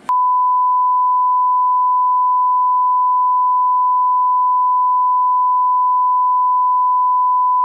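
Steady 1 kHz broadcast test tone, the reference tone that goes with colour bars, holding one unchanging pitch.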